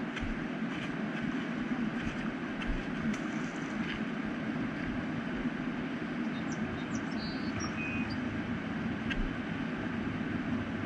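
Steady, even rushing outdoor noise at a riverbank, with no breaks. A few faint short high chirps sound about two-thirds of the way through.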